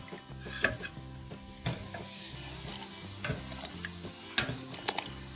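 Tomatoes sizzling on a grill over an open wood fire, with sharp crackles and clicks now and then. Quiet background music runs underneath.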